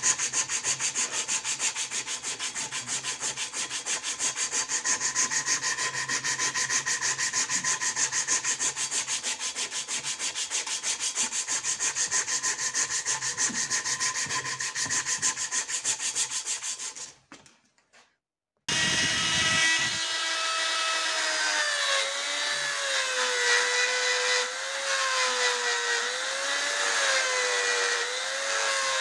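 Abrasive strip rasping in fast, even back-and-forth strokes as it is pulled shoe-shine style around a wooden knife handle. It stops about 17 seconds in. After a moment of silence, a small handheld rotary tool whines steadily while its grinding bit works the steel of the blade, the motor's pitch wavering as the bit bites.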